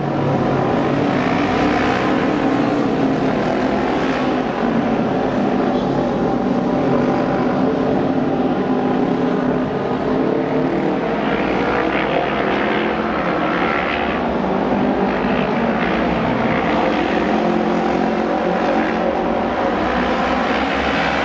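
Several Japanese auto race (oval-track) motorcycles running practice laps, their 600 cc four-stroke twin engines held at high revs. The engine notes overlap and run continuously, wavering in pitch as the bikes circle the track.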